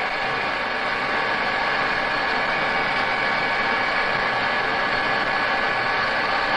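Colchester centre lathe running steadily, turning its test piece, with a steady whine over the machine noise.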